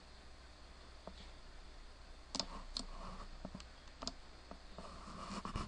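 Computer mouse buttons clicking, a handful of sharp single clicks at irregular spacing, the loudest about two and a half seconds in, over faint room noise.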